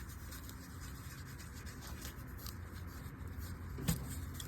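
Hands working at a vacuum hose and an ignition coil connector in the engine bay: small rubbing and plastic clicking, with one sharper click about four seconds in, over a low steady hum.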